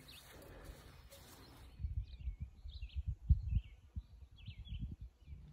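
Wind hiss for about two seconds, then small songbirds chirping in short repeated calls while gusts of wind rumble and thump on the microphone.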